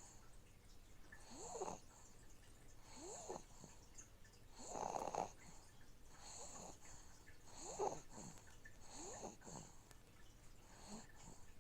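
Soft snoring breaths of a sleeping baby, one roughly every second and a half, the strongest about five and eight seconds in, over the steady low hum of an aquarium filter.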